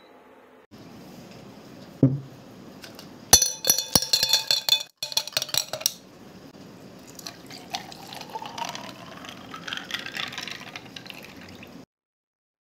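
Ice cubes clinking and ringing against a tall glass, then a milky drink poured over the ice, the pouring sound rising steadily in pitch as the glass fills. A dull knock comes about two seconds in.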